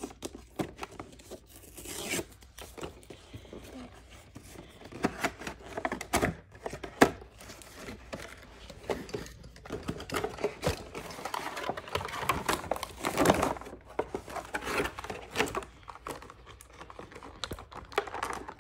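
Cardboard toy box being pulled open by hand: irregular ripping of tape and cardboard and scraping of the packaging, with a plastic bag crinkling near the end.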